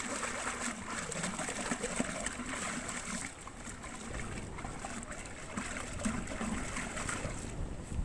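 Muddy water sloshing and splashing inside a terracotta clay pot as an arm works about in it, with small irregular wet clicks.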